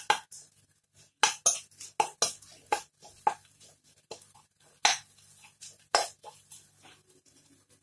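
Metal spoon scraping and knocking against a wok while red curry paste is stirred in a little frying oil. The strokes are irregular, some sharp clinks among softer scrapes.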